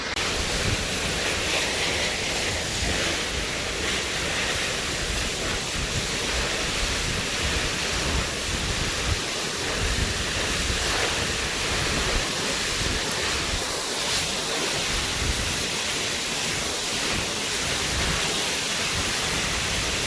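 A tall waterfall, about 200 feet high, pouring down close by: a loud, steady rush of falling water.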